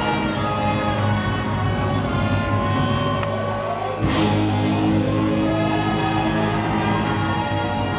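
Live band playing rock music; about halfway through a loud crash hits and the music gets a little louder.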